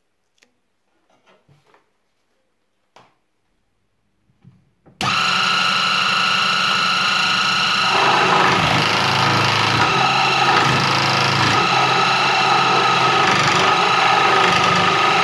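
A few faint handling clicks, then about five seconds in a Dremel Moto-Saw switches on suddenly and runs with a steady whine. About three seconds later its reciprocating blade starts cutting a small walnut board, and the sound grows rougher.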